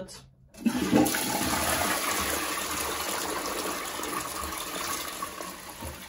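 Toilet flushing: water from the cistern rushes into the ceramic bowl about half a second in and keeps running steadily as it swirls down the drain.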